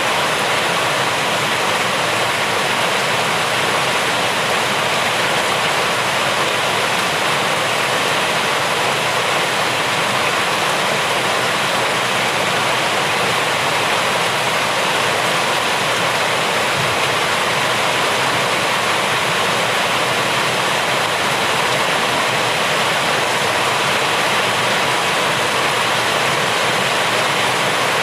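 Rain falling steadily, a dense even hiss that does not change.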